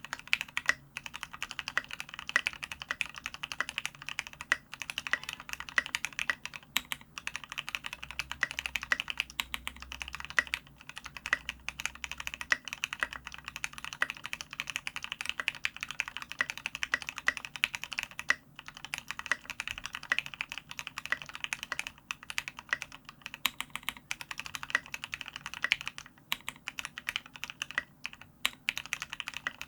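Continuous typing on a custom mechanical keyboard fitted with SA-profile ABS keycaps (SA Oblivion) over lubed, filmed Gateron Ink Black linear switches on an aluminium plate, giving a dense, irregular stream of keystroke clacks.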